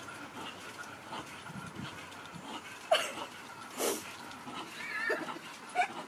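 A dog giving a few short whimpers and yips, the loudest a brief falling cry about three seconds in, over a steady hiss.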